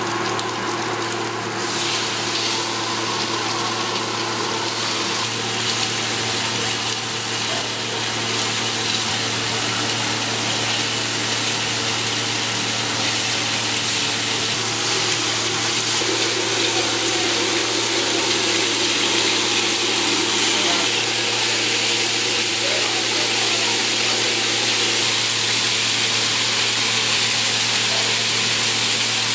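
Seasoned broom tail grouper pieces sizzling in bacon grease on a hot flat-top griddle, a steady sizzle that grows a little louder over the first several seconds as more pieces go down. A steady low hum runs underneath.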